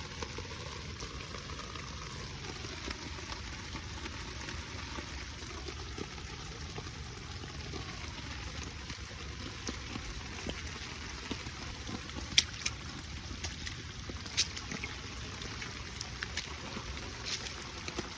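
Shallow floodwater, about an inch deep, running and trickling steadily across the ground. A few sharp clicks stand out, the loudest about two-thirds of the way through.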